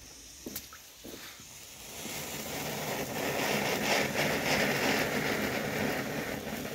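Small firework fountain (volcano) burning, spraying sparks with a grainy hiss that builds up about two seconds in and eases off near the end. A couple of short clicks come before it.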